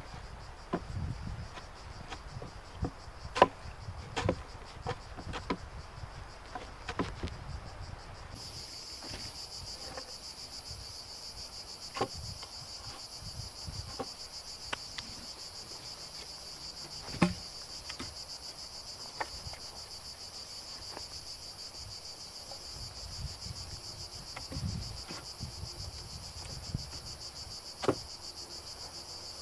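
Insects buzzing in a steady high chorus that sets in abruptly about eight seconds in. Scattered sharp knocks and clicks sound throughout, the loudest a few seconds in and again near the middle and near the end.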